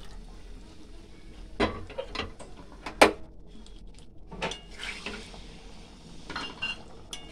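Several metal clanks of a cooking pot and a ladle knocking against a steel kadai of curry, the loudest a sharp clank about three seconds in.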